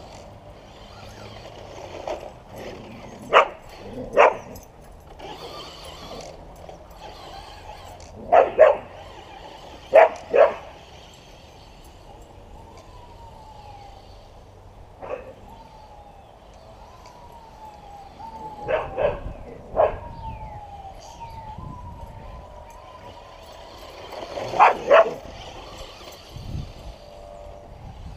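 A young blue heeler (Australian cattle dog) barking, with about a dozen loud, sharp barks that come mostly in pairs, separated by quieter gaps of a few seconds.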